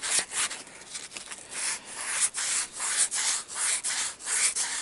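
Very fine sandpaper rubbing the copper commutator of a GAZelle heater fan motor's armature in quick rasping strokes, about three a second, with a short pause about a second in. The commutator is being cleaned because the motor hums loudly.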